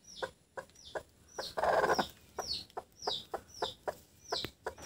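Chicken calls from a broody hen's nest: a run of short, high, falling peeps about two a second, with low clucks between them and a short rough burst about one and a half seconds in.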